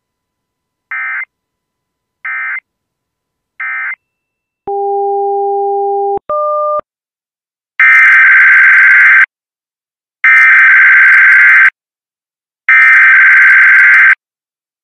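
Emergency Alert System SAME data bursts from NOAA Weather Radio: three short, quieter buzzing bursts, which are the end-of-message signal, then a steady low tone for about a second and a half and a brief higher tone, then three longer, loud buzzing bursts, which are the header of the next station's weekly test.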